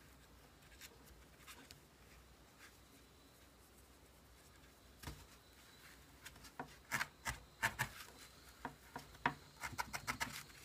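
Felting needle jabbing into a wad of wool on a foam pad: soft, irregular scratchy ticks, sparse at first, then coming several a second from a little past halfway.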